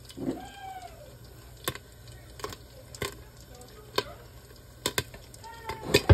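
Popcorn kernels popping in a covered pan on the stove: sharp single pops at irregular intervals, about nine in six seconds, with a cluster of louder pops near the end.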